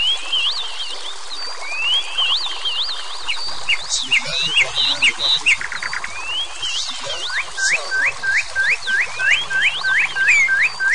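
Birdsong: several birds chirping and whistling in quick gliding notes. In the second half one bird repeats a sharp rising whistle about three times a second.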